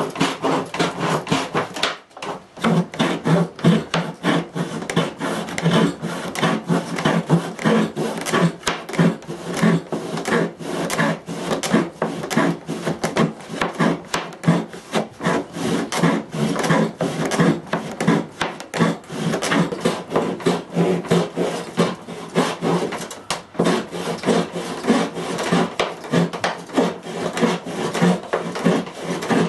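Japanese ryoba saw blade on a pedal-powered table saw, cutting wood in quick, regular back-and-forth strokes. The strokes break off briefly about two seconds in, then carry on.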